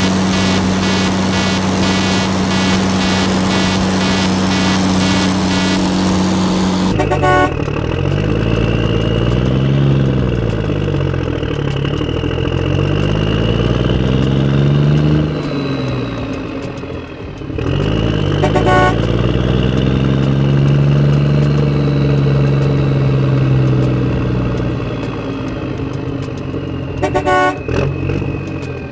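Vehicle sound effect: a steady horn-like drone with rapid regular pulses for the first several seconds, then an engine revving up and down in pitch over and over, with a couple of brief breaks.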